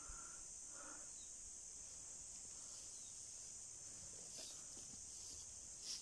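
Faint, steady high-pitched chorus of insects droning in the summer woods.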